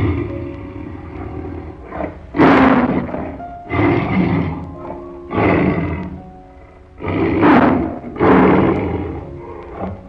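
An animal giving a series of loud, rough calls, about six in a row roughly a second and a half apart, over background music.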